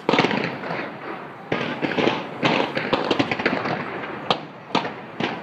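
Fireworks going off in a dense barrage of rapid crackles and bangs, opening with a loud burst and thinning to a few single sharp bangs near the end.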